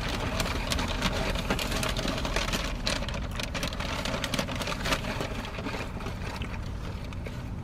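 Car cabin with a steady low engine rumble while paper food bags and wrappers rustle and crinkle in short bursts.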